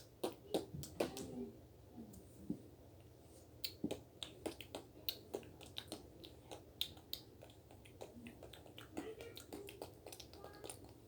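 Scattered sharp clicks and light taps at an irregular pace, over a low room background.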